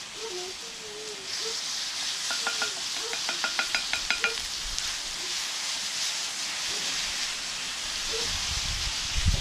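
Ripe banana slices sizzling as they fry in a pan, a steady hiss that grows about a second in. A quick run of light clicks sounds between about two and four seconds in, and a low thump comes near the end.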